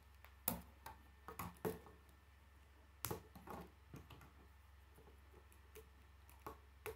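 Plastic K'nex rods and connectors clicking and snapping together under the fingers: a string of faint, separate clicks and taps with pauses between. The sharpest come about half a second in and again about three seconds in.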